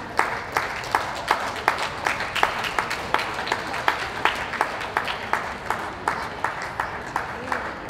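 Crowd clapping in unison to a steady beat of about three claps a second, over a haze of general applause.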